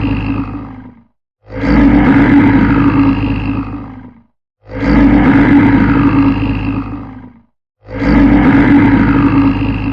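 A large animal's roar played over and over: the same call, identical each time, starts suddenly, holds for about two and a half seconds and fades out, repeating about every three seconds.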